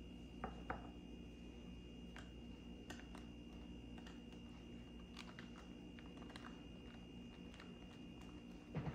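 Light, scattered clicks and taps of hands pressing whole cloves into a ham, over a steady low hum with a faint high whine.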